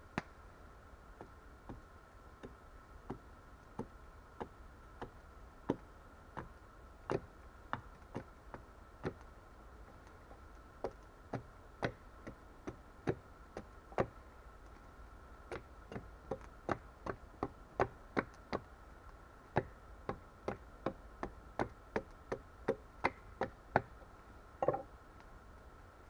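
Dry wooden knocks, about one or two a second with a short pause in the middle, as a tool is struck into the end of a sawn log round to split off a piece. Near the end comes a short rougher crack as the wood splits.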